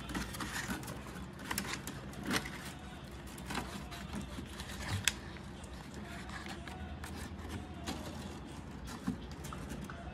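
Bundles of enamelled copper magnet-wire leads on a rewound electric-motor stator rustling and clicking as they are handled, with a few sharp ticks among them, over a steady low hum.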